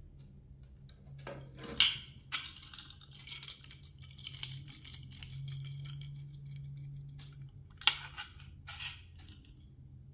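Steel on steel: a knife and oval honing steels clinking and scraping, with two sharp metallic clinks, one about two seconds in and one near eight seconds, and a run of quick scraping strokes between them.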